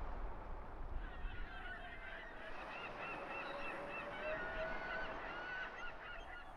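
A flock of birds honking: many short, overlapping pitched calls start about a second in, over a low rumble.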